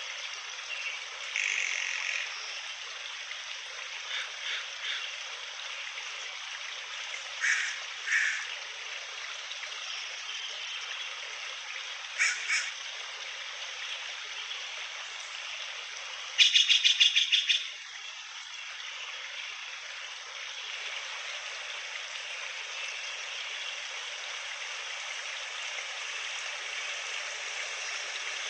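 Forest ambience: a steady hiss under scattered short animal calls, some single and some in quick pairs. A bit past the middle comes a loud rapid trill of about ten notes.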